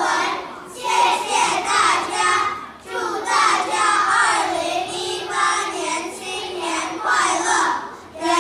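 A group of children singing together in unison in short phrases, with brief breaks between lines.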